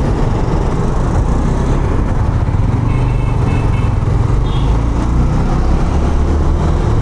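Honda CB 150F single-cylinder motorcycle riding along, its engine running steadily under a dense rumble of road and wind noise. A brief high tone sounds about three seconds in.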